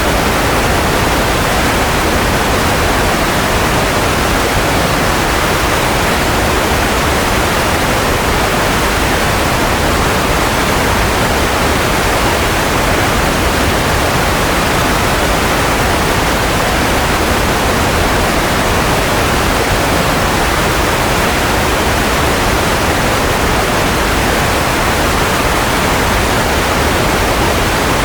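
Steady, unchanging white noise for baby sleep, heavier in the low and middle range than in the highs.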